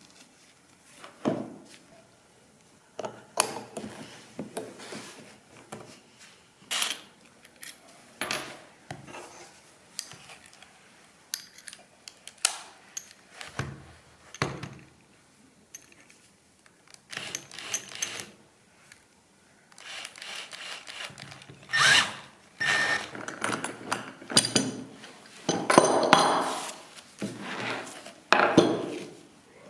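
Irregular knocks, clatters and scrapes of tools and materials being handled on a wooden workbench, busier and louder over the last third.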